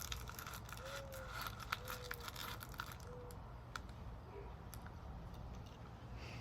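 Wrapper crinkling and tearing for about three seconds, then a few faint clicks. Soft low coos, like a dove's, come three times in the first half.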